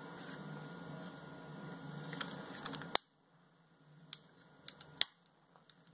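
Soft handling rustle, then a sharp plastic click about three seconds in, followed by a few fainter clicks, as the Sony action camera's waterproof housing is unlatched and opened.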